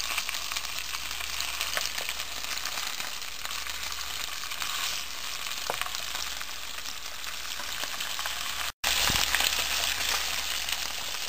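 Marinated pomfret steaks shallow-frying in a little oil in a nonstick pan: a steady sizzle with scattered small crackles. It cuts out for a moment near the end and comes back louder.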